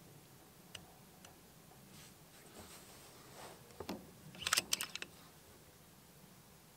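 Faint mechanical clicks of a hand working the controls and grip of an FX Panthera PCP air rifle: a few single clicks, then a quick run of sharper clicks about four to five seconds in.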